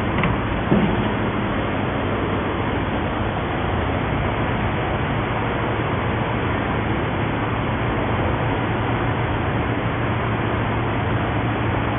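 Steady machine noise with a low hum, from an induction gold melting furnace running on test, with a single short knock about a second in.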